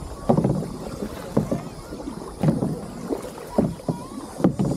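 Kayak paddle strokes splashing in the water, about one stroke a second, over a low steady hiss.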